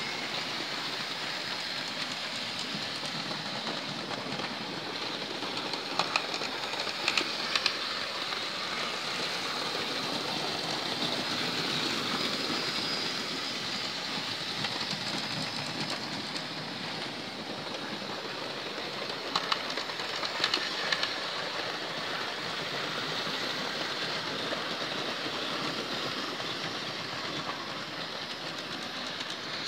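Hornby model trains running around a layout: a steady rattling run of motors and wheels on the track, with a few sharp clicks in a cluster about six to eight seconds in and another around twenty seconds in.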